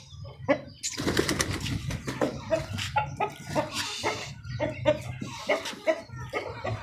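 Aseel chickens clucking in short, repeated notes, with scratchy clicks throughout. There is a brief rush of noise about a second in.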